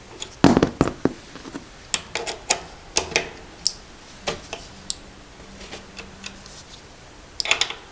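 Irregular metal clicks and taps of an 8 mm Allen wrench working a crank bolt into an exercise bike's pedal crank, with a loud cluster about half a second in and another near the end.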